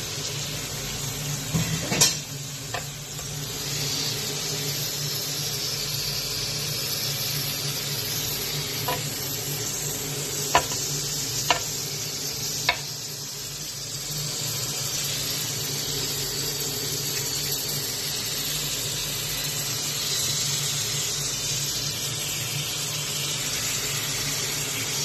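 Thin slices of meat sizzling steadily on a ridged grill plate, with a few sharp clicks of metal tongs against the plate: once about two seconds in, and three times between ten and thirteen seconds in.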